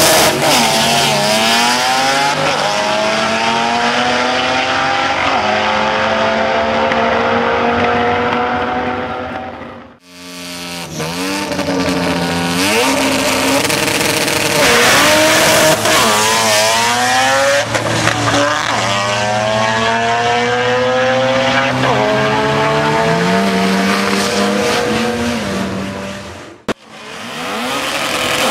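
Turbocharged 13B rotary engine of a Mazda RX3 drag car at full throttle on two passes: the pitch climbs through each gear and drops back at each shift, fading as the car pulls away. Near the end the engine revs up again.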